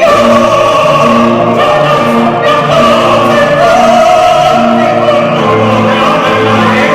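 Music with singing voices over instrumental accompaniment, dense and loud.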